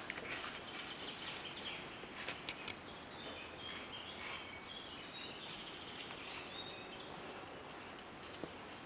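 Woodland ambience: a steady outdoor hiss with faint bird chirps through the middle, and a few light clicks about two seconds in.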